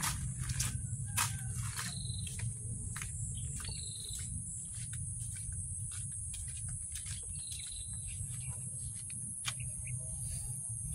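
Steady high-pitched shrilling of insects such as crickets, with a few short bird chirps. Footsteps crunch on gravel in the first couple of seconds, over a constant low rumble.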